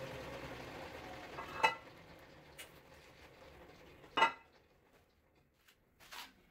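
Two sharp metal clinks, about two and a half seconds apart, each ringing briefly: a hand tool knocking against the cast-iron parts of an old milling machine. A low steady hum fades away in the first couple of seconds.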